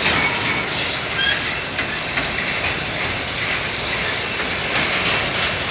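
Freight train of enclosed autorack car carriers rolling past: a steady rumble and rattle of steel wheels on the rails, with occasional clicks.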